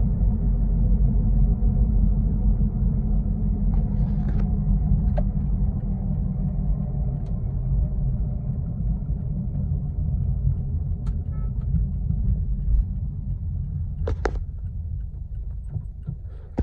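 Low, steady rumble heard from inside a Toyota Corolla Altis while driving, the drone of a worn wheel bearing mixed with road noise, easing off gradually near the end. A few light clicks come through briefly.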